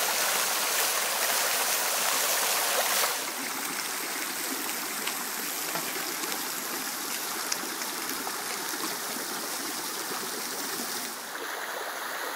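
Trout frying in butter in a pan over a hot propane camp stove, sizzling for about three seconds. Then a shallow rocky brook rushing steadily.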